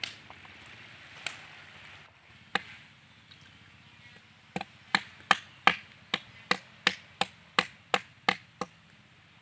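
Knife chopping at a fish laid on a palm-trunk log: a couple of separate knocks, then a steady run of about a dozen sharp chops, roughly three a second, starting about halfway in.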